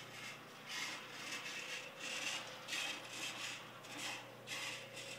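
Soft rubbing and rustling strokes, uneven, about two a second, with a faint steady hum beneath: handling noise on a hand-held camera's microphone as it is moved.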